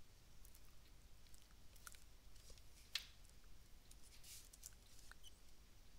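Near silence with a few faint computer mouse clicks. The sharpest comes about three seconds in.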